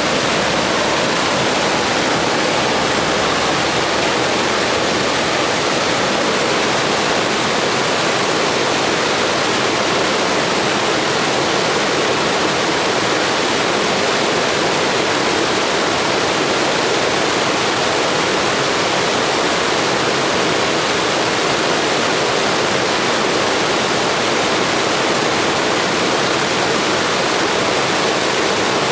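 Blizzard wind, a loud, steady rushing hiss with no gusts or let-ups.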